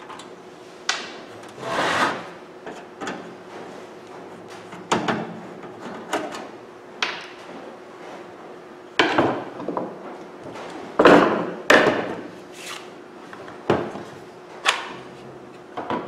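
Screwdriver, screws and tools handled on a wooden workbench while screws are taken out of a microwave oven's metal back panel: irregular knocks, clicks and short scrapes over a faint steady hum.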